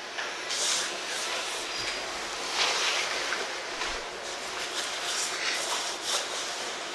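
Carom billiard balls rolling on the cloth and knocking together, with a sharp click about six seconds in as the white ball strikes the blue, over a murmur of voices in the hall.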